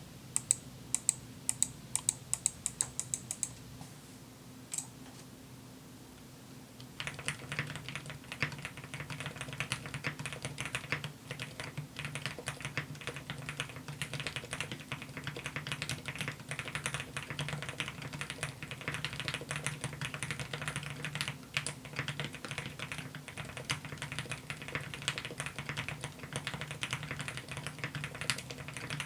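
A QK65 keyboard with retooled TTC Silent Red v3 linear switches (Gateron Pro Red bottom housings) is typed on continuously from about seven seconds in. Each press gives a single low, muted bottom-out sound with a slight rubbery note and no top-out clack. The typing is preceded by a short run of sharp high clicks.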